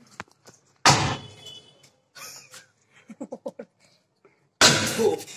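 Disposable gas lighters bursting in a pan of hot refined cooking oil over a wood fire: two loud bangs, one about a second in and one near the end, with a few smaller quick pops between.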